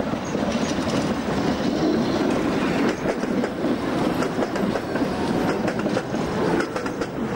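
Tatra KT8D5 articulated tram passing close by, its wheels rumbling and clattering over the rails. There are many sharp clicks from the wheels over the track, thickest as the tram's body goes past.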